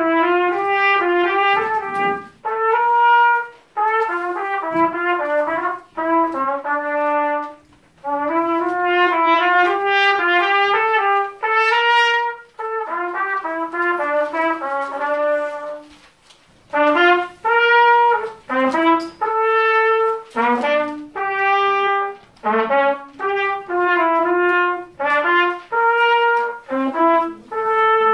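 Trumpet playing a solo melody in phrases broken by short breaths; in the second half the notes turn shorter and more detached.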